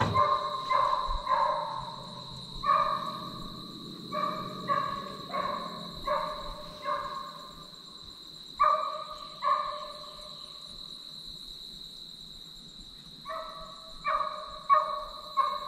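Deer-hunting hounds barking on a chase, in runs of short yelping calls with a pause of a few seconds after the middle, then picking up again near the end: the dogs have jumped a deer and are running it. A steady high whine sounds underneath.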